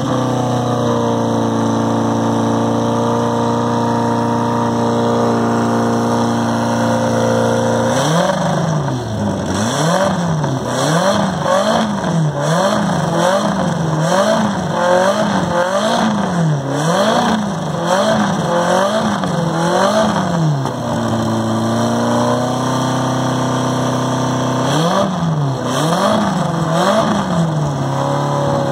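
Ford RS1700T rally car's turbocharged four-cylinder engine idling, then blipped on the throttle in quick revs about once a second for some thirteen seconds. It drops back to idle, gets a few more blips near the end, and settles to idle again.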